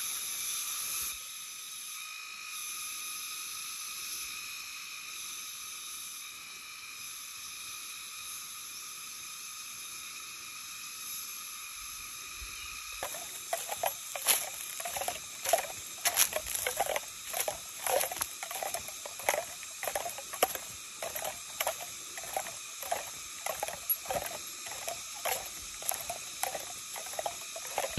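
Insects keeping up a steady, high-pitched chorus. About halfway in, footsteps crunching on dry leaves and grass join it at about two steps a second.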